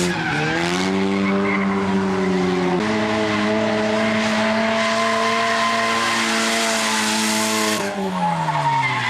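Race car engine at full throttle on a drag strip run: its note climbs, steps up a little about three seconds in, holds high, then falls away near the end as it comes off the throttle.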